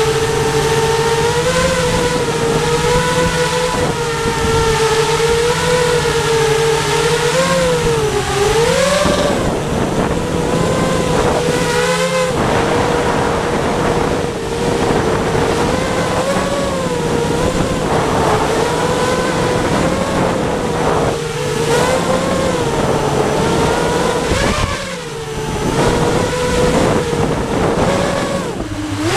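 FPV mini quadcopter's electric motors and propellers whining, heard from its onboard camera, the pitch wavering up and down with the throttle over a rush of air. The pitch dips and climbs sharply about eight seconds in, and there is a brief break near twelve seconds.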